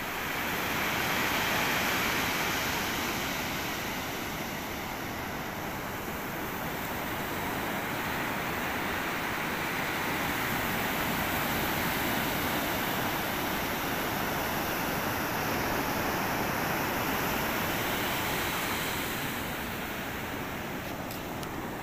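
Surf breaking and washing up a sandy beach: a steady rush of waves that swells and eases slowly.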